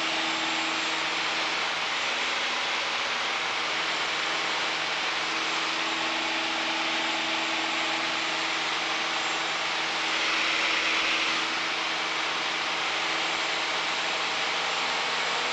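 Piper Warrior's four-cylinder Lycoming engine and propeller droning steadily in cruise, heard inside the cockpit, with a steady hum under an even rush of noise. The noise swells slightly for a second or so about ten seconds in.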